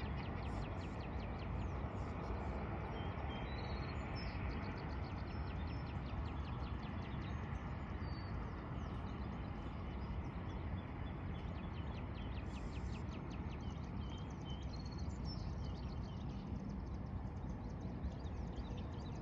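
Outdoor ambience: a steady low rumble, with birds chirping now and then over it. For the first half and again briefly later there is a fast, even run of sharp high ticks.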